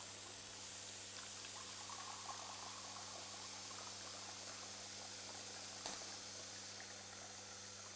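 Red wine streaming from copper pipe spouts into wine glasses, a steady pouring and splashing. There is a single click about six seconds in.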